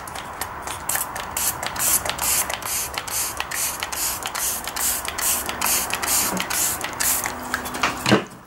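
Hand-pump spray bottle misting water onto a foam edge, many quick squirts in a row at about three a second, stopping just before the end. This is the wetting step that lets the polyurethane Gorilla Glue cure.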